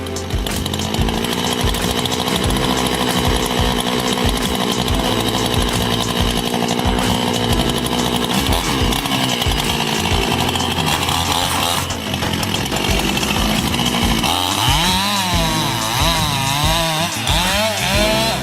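Gasoline chainsaw running at high revs while cutting into a large tree. The engine runs steadily through the first half, then revs up and down several times near the end.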